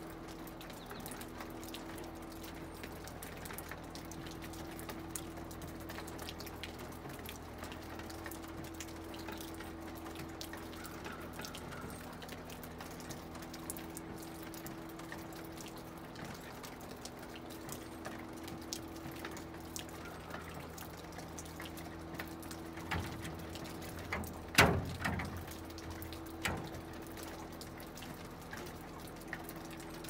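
Meltwater dripping from the roof eaves, scattered drops ticking irregularly. A few louder knocks come about three-quarters of the way through.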